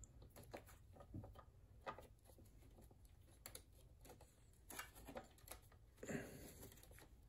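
Near silence with faint scattered clicks and rustles: hands handling a sewing machine's wiring harness and plastic connectors, with a slightly longer rustle about six seconds in.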